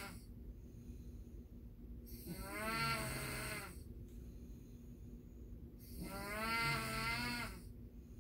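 A man snoring: two long, droning snores about three and a half seconds apart, each with a wavering pitch, after the tail end of another at the very start.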